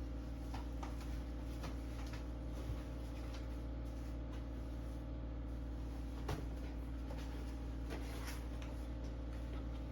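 Scattered light clicks and knocks over a steady low hum, with a sharper knock about six seconds in.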